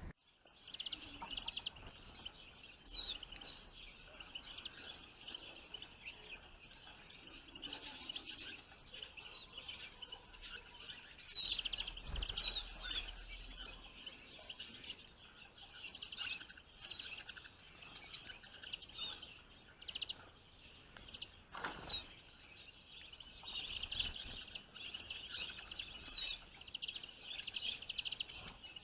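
Finches twittering and chirping continuously, a busy chatter of many short notes with frequent quick down-slurred calls. A single sharp click sounds about three-quarters of the way through.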